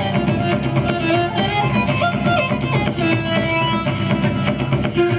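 Background music with a violin melody over plucked strings and a steady beat.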